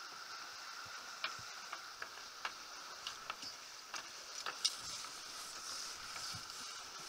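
Steady hiss of water and wind rushing past a Farrier F-31 trimaran under sail, with a dozen or so sharp, irregular clicks from lines and deck hardware being handled. The loudest click comes about four and a half seconds in.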